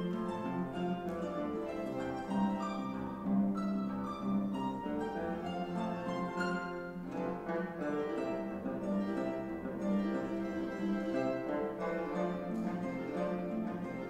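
Paraguayan harp playing a lively piece: quick runs of plucked notes over repeated low bass notes.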